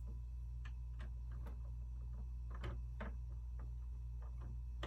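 Light, irregular clicks and taps of plastic Lego pieces being handled and fitted together, over a steady low hum.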